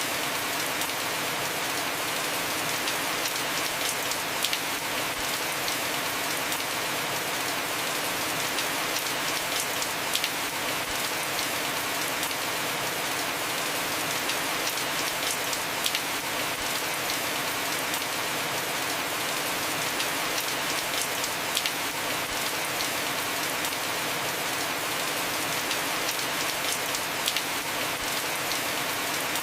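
Heavy rain falling steadily on a house roof: an even hiss with scattered sharp drop ticks.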